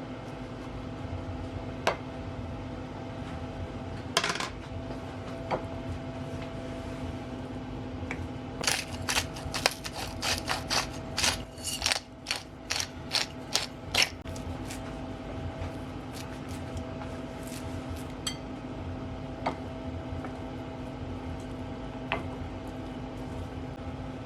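Kitchen clatter: sharp metallic clinks and light scraping, a few on their own and then a quick run of them for several seconds midway. Under it runs a steady hum from a running kitchen appliance.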